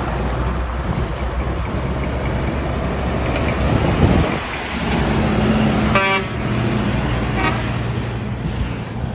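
Heavy truck passing close with its engine running loud, then two short blasts of the truck's horn, the second one fainter.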